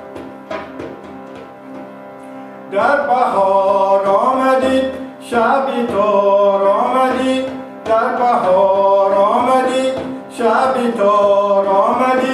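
Clarinet, harmonium and hand frame drum playing together: a soft harmonium drone with light drum taps, then about three seconds in a loud melodic line with sliding, bending notes comes in, in phrases of two to three seconds with short breaks between.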